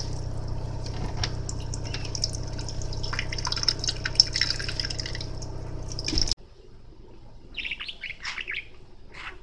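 A budgerigar chirping over running, splashing water while it bathes. The water noise stops suddenly about six seconds in, and a few short budgie chirps follow.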